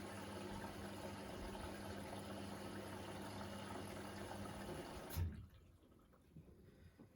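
Beko washing machine taking in water: a steady rush of water with a low hum, which stops abruptly with a click about five seconds in.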